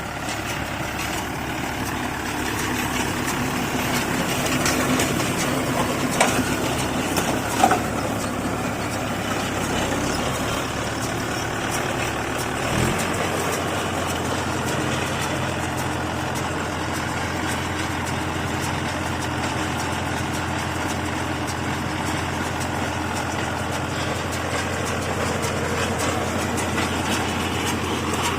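Mahindra Yuvo 475 tractor's diesel engine running steadily while working a baler, with a couple of sharp knocks about a third of the way in. Its engine speed steps up suddenly about halfway through, then holds steady.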